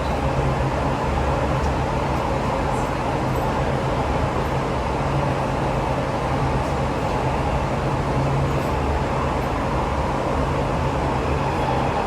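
Steady interior running noise of an SMRT Siemens C651 metro train, a constant low hum with even rumble and no sudden events.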